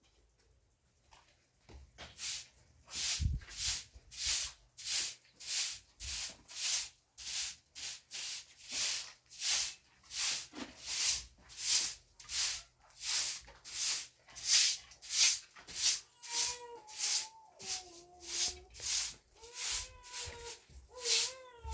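Rhythmic swishing strokes, about two a second, like a brush or broom worked back and forth. From about 16 seconds in, a wavering hum sounds over them.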